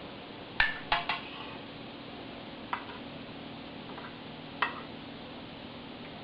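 Kitchen utensil clinking against cookware: a quick run of three clinks about half a second in, then single clinks near three seconds and near five, over a steady low hum.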